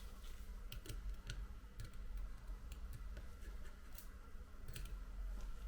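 Faint, scattered small clicks of a precision screwdriver and tiny tri-point screws being taken out of an iPhone 7's internal cover plate, about ten in all, over a steady low hum.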